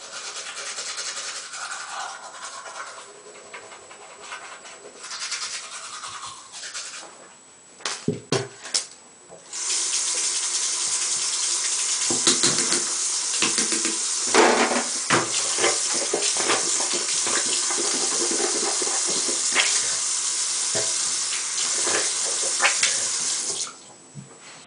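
Toothbrush scrubbing teeth. About ten seconds in, a bathroom tap comes on and runs steadily into the sink, with a few knocks and splashes, until it is shut off suddenly near the end.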